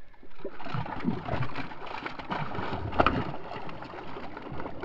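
A hooked bass thrashing and splashing at the water's surface beside the boat as it is played on the line. The loudest splash comes about three seconds in.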